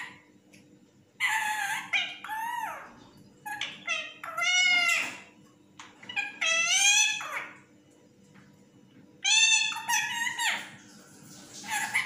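Indian ringneck parakeet calling in four drawn-out bursts, each a string of rising and falling calls, with short pauses between them.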